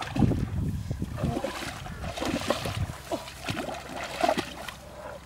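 Water splashing and trickling in an irregular run of small splashes.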